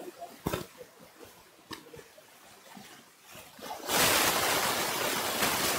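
Faint clicks and rustles of a clip-on microphone and its cable being handled, then about four seconds in a loud, steady hiss comes in.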